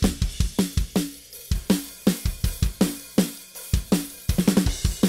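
Raw, unprocessed multitrack drum recording of a pop-punk kit playing back: kick and snare hits in a fast, even beat with cymbal wash above, and a quick flurry of hits about four and a half seconds in.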